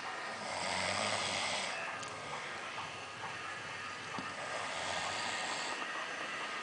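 A drunk man snoring in his sleep: two long snores about three and a half seconds apart, the first louder and with a low rumble under it.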